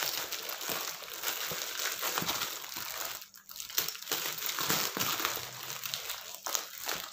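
Brown paper, clear plastic tape and corrugated cardboard wrapping crinkling and rustling as a parcel is unwrapped by hand, with a short pause about three seconds in.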